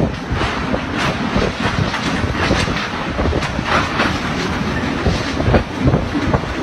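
Typhoon wind gusting hard against the microphone: a heavy, uneven rumble with irregular knocks and rattles.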